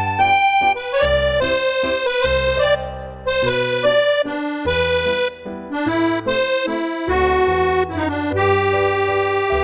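Instrumental music: a melody of short notes over low bass notes, settling into a held chord near the end.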